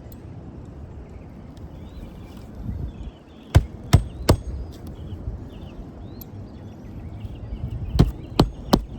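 Hammer driving a roofing nail by hand into an asphalt shingle repair: two sets of three quick blows, one about midway and one near the end. The shingles being nailed are judged too old to repair.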